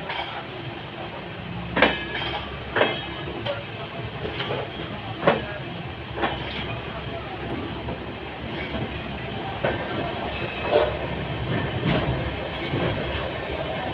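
Passenger train coach running along the track: a steady running noise broken by irregular sharp clacks of the wheels over rail joints.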